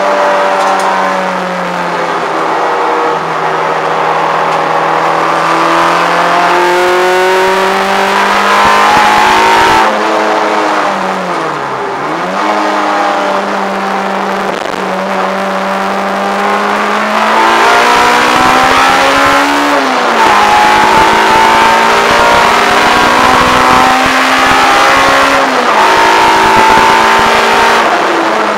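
Peugeot 106 GTi's 1.6-litre 16-valve four-cylinder on Jenvey individual throttle bodies, driven hard on track and heard from inside the cabin. The revs climb through the gears and fall sharply at the changes, about ten, twenty and twenty-six seconds in, with a deep dip in revs near twelve seconds.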